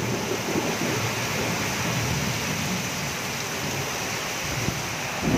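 Heavy tropical downpour pouring steadily onto the street and roofs in a strong wind, with a low rumble underneath.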